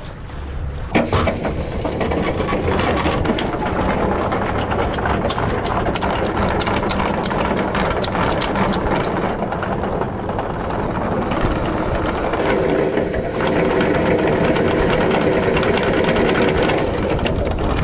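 Anchor chain paying out over a catamaran's bow roller as the anchor is let go: a continuous metallic rattle of chain links, with many quick clicks, starting with a sharp clank about a second in.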